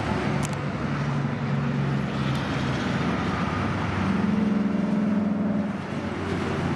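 2003 Harley-Davidson Sportster 883's carbureted V-twin running through aftermarket slip-on mufflers, freshly started and idling, with the engine speed raised for a couple of seconds about four seconds in before dropping back to idle.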